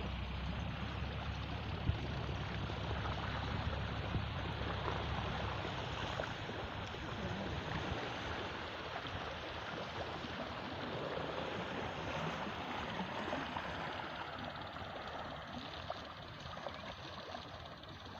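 Sea water rushing and gurgling, a steady wash with a few small splashes. A low rumble lies under it for the first few seconds, then drops away.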